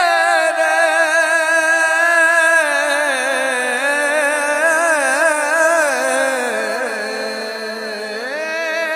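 A male voice singing an Urdu noha, drawing out the word "mere" ("my") in one long ornamented melisma. The note is held steady at first, then wavers and slides, dips lower past the middle and rises again near the end.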